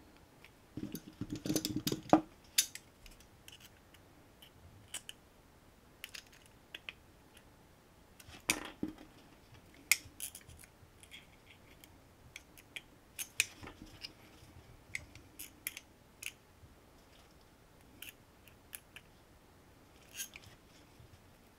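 Hand tools clicking and tapping as wire is bent with locking pliers and needle-nose pliers: scattered small metallic clicks, with a busier rattle about a second in.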